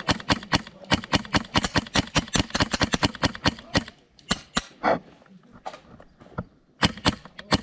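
Airsoft rifle fire: rapid sharp pops at about seven a second in strings, stopping about four seconds in, two single shots, then another string near the end.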